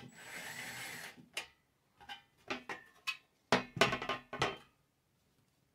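Cordless drill-driver running for about a second as it drives a small screw into the dish panel, followed by a series of sharp clicks and knocks.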